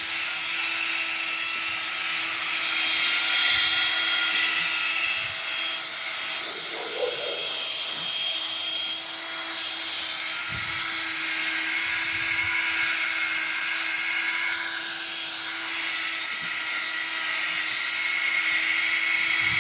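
Power drill running steadily with a polishing pad pressed against a plastic headlight lens, working in the restoration polish: a constant motor whine over a steady rubbing hiss.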